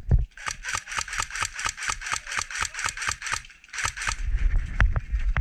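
Airsoft electric gun firing a long full-auto burst, an even rattle of about eight shots a second lasting some three seconds, then a few single sharp snaps over low rumble.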